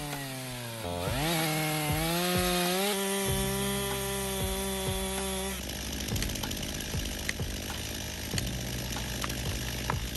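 Chainsaw running under load, its engine pitch dipping and climbing back about a second in, then holding steady. About halfway through the sound changes abruptly to a rougher, noisier texture with scattered sharp clicks.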